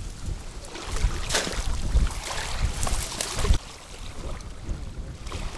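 Wind gusting on the microphone in low rumbles, with small waves lapping against the reedy shore. The gusts ease off about three and a half seconds in.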